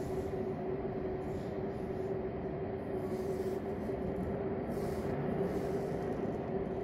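A steady hum over an even rumble, with one constant tone that holds without change.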